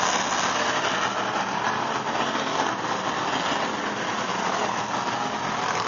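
A pack of enduro stock cars racing on an oval track, many engines running together in a steady, loud wash of sound.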